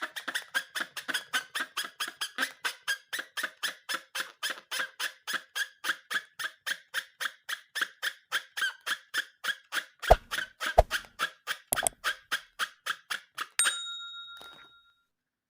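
Rubber balloon squeaking in a fast, even rhythm, about five squeaks a second, with a few knocks near the end. The squeaking stops with a short steady tone.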